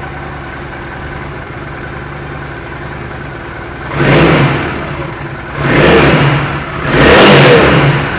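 A 2009 Honda VT750 Shadow's V-twin engine idles steadily through its twin chrome exhausts. From about four seconds in, the throttle is blipped three times and each rev swells up and falls back.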